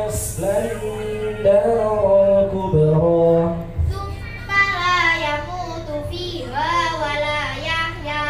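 Melodic chanted Qur'an recitation (tartil) over a PA system: a lower voice holds long notes for about the first four seconds, then a girl's voice takes over, chanting the verse in long ornamented, gliding phrases.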